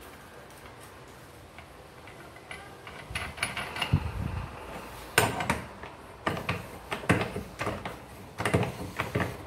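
Metal clutch parts of a scooter's Malossi clutch clicking, knocking and scraping as they are fitted together by hand. The clicks start a couple of seconds in, with several sharper knocks in the second half.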